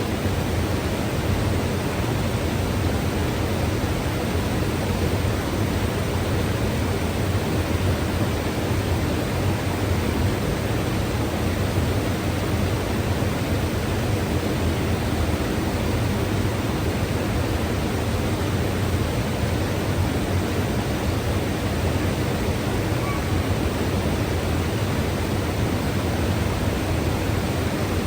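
Mountain river rushing over rocks: a steady, even roar of flowing water with no breaks.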